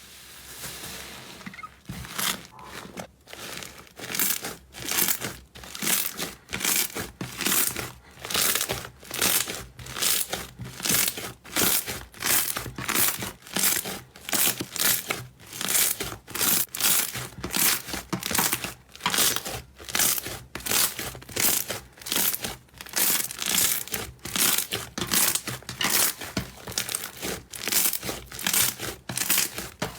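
Slime being kneaded and squeezed by hand, crackling and crunching about twice a second in an even rhythm.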